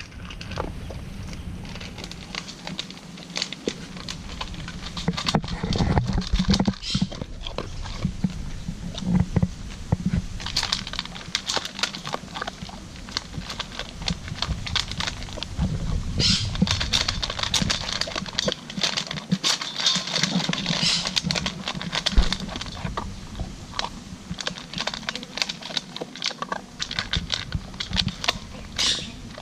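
A dog eating dry kibble and cucumber slices from a stainless steel bowl: a steady, irregular run of crunching and chewing clicks.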